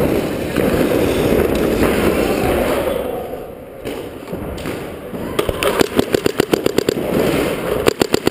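Paintball marker firing rapidly, a fast string of sharp shots several times a second, starting a little after halfway through. Before it, a steady rushing noise of movement against the microphone.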